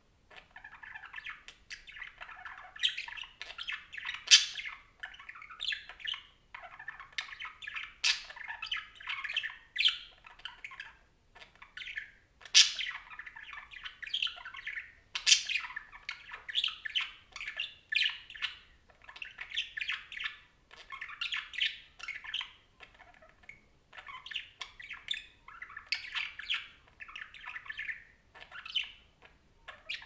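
Budgerigar chattering: a quick, continuous run of warbled chirps and chatter, broken by brief pauses. A few sharp, high squawks stand out above the rest.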